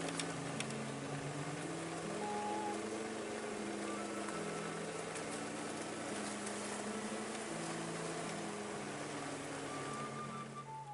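Background music of long held notes, changing pitch every second or so, over a steady rushing noise that fades near the end.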